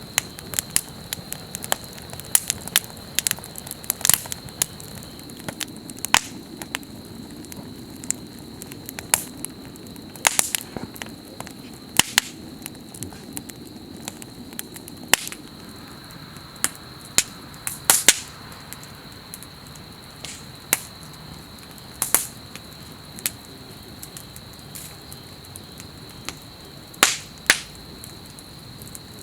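Wood campfire crackling, with irregular sharp pops and snaps, some much louder than others, over a low hiss of burning. A thin, steady high tone runs underneath.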